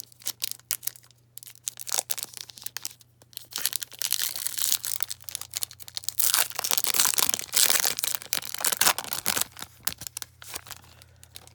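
A silver wrapper on a pack of trading cards being torn open and crinkled by hand: scattered crackles at first, then a longer stretch of dense crinkling and tearing in the middle.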